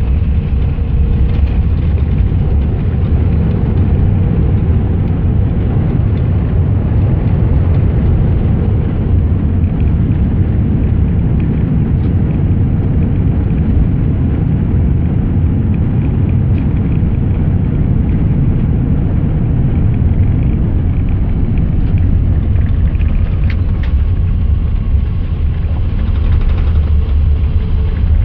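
Steady loud low rumble of an Airbus A380 heard from inside the passenger cabin during landing, with no distinct thumps or changes.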